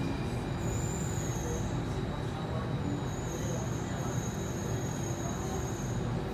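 Alstom C830 metro train running, heard from inside the car: a steady rumble of wheels and running gear. A faint high-pitched whine comes in about half a second in, fades, and returns from about three seconds to near the end.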